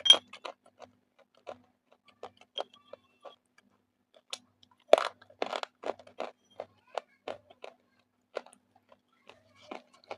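Roasted Russian clay being bitten and crunched between the teeth: a sharp crack of a bite right at the start, a louder burst of crunching about halfway through, and scattered crisp chewing crunches in between.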